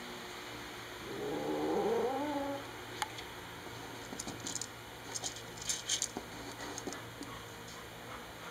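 Black calico cat growling low and wavering for about a second and a half, a territorial warning at a newcomer cat. After that come scattered small crisp crunches as it eats dry kibble from a bowl.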